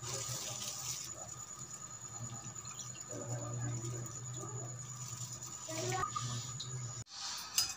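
Sugarcane juice poured from a plastic bag into a steel tumbler, liquid running into the metal cup about midway through, over a steady low hum.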